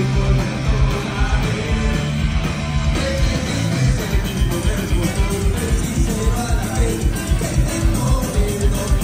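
Live punk rock band playing: electric guitars, bass and drums with a singer on the vocal. From about four seconds in the drums drive a fast, even beat.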